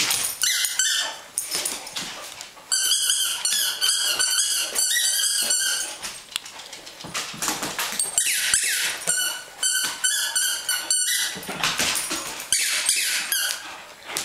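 Squeaky dog toy squeezed over and over, giving high squeaks several times a second in three long runs.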